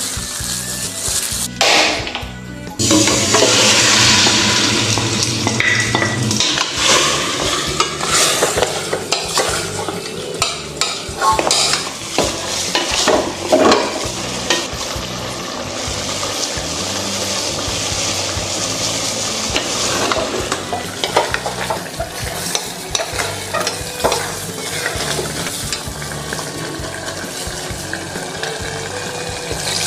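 Food frying and sizzling in a pan, with stirring and utensil clicks and scrapes throughout, over background music.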